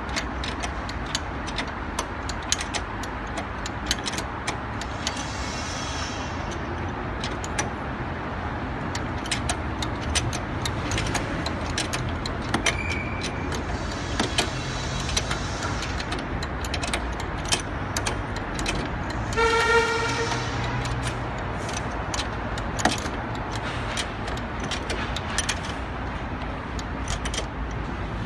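Steady outdoor traffic hum with scattered small clicks and taps of hand tools and metal bracket parts being worked under a car's hood. A brief car horn toot sounds about twenty seconds in.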